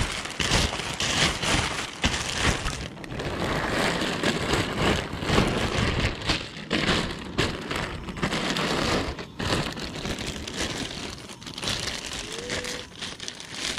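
Black plastic garbage bag crinkling and rustling as it is handled and stuffed, a dense, irregular crackle.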